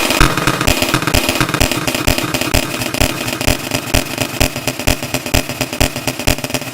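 US Emergency Alert System alarm, digitally sped up to an extreme rate so that it no longer sounds like tones but like a harsh, rapid stream of clicks over a low steady hum.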